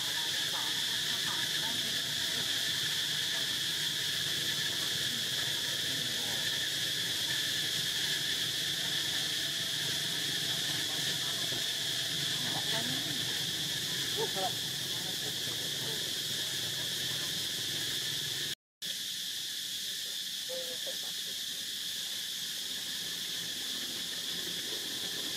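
Steady high-pitched chorus of insects, unchanging throughout, with faint scattered sounds beneath it. It drops out for an instant about two-thirds of the way through.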